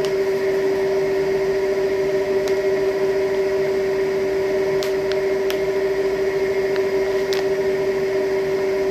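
A steady hum with a constant tone, running evenly throughout, with a few faint clicks.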